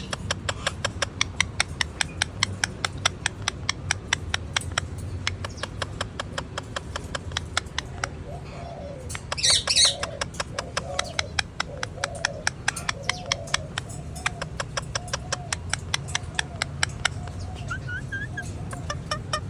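Ring-necked parakeet calling, with one loud, shrill squawk about halfway through and softer wavering chatter after it. A fast, even ticking runs underneath.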